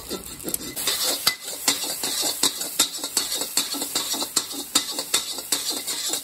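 Steel spatula scraping and clinking against a metal wok in quick repeated strokes, about two or three a second, breaking up and stir-frying egg.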